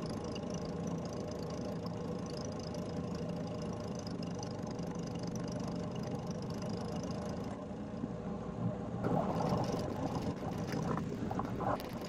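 Snowblower engine running steadily under load as it throws snow, a continuous hum. About nine seconds in, a louder, rougher rushing noise joins it.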